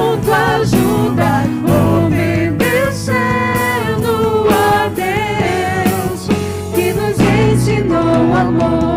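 Live congregational worship song sung in Portuguese by a man and two women on microphones, backed by a band with a five-string electric bass.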